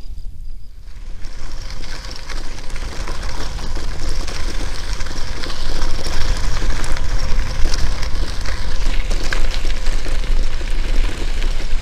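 Wind rushing over an action camera and bicycle tyres rolling on the road while riding, a hiss over a steady low rumble. It is quieter for the first second or two, then builds up and stays loud.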